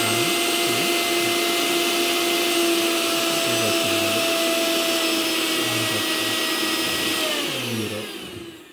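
Prestige 750-watt mixer grinder running steadily at speed with a high whine, grinding coconut and dried red chillies into chutney in its small jar. Near the end it is switched off and the whine falls in pitch and fades as the motor spins down.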